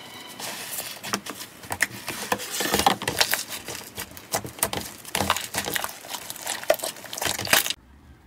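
Stretchy slime being pulled apart and then kneaded and pressed by hand, giving a dense run of sticky crackles and pops that cuts off suddenly near the end.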